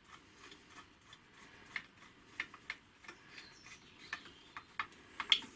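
Light, irregular metallic clicks and taps as a small screw is put in and tightened to hold a lathe's tool holder, with a sharper click near the end.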